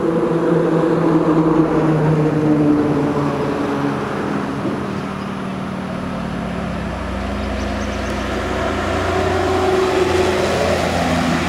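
Intercity bus's diesel engine running at highway speed along with tyre noise as the coach approaches. The engine note shifts about halfway through as a deeper rumble comes in, and the sound grows louder again near the end as the bus draws near.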